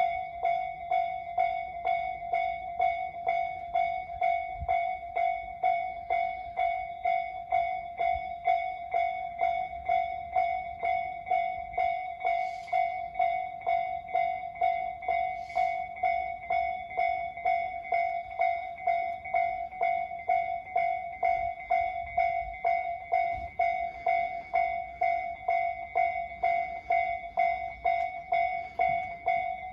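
Japanese railway level-crossing warning bell ringing, a steady repeating ding a little under two times a second.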